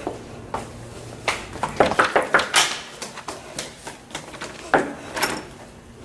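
A series of sharp knocks and clatters, in a cluster about a second in and another near five seconds.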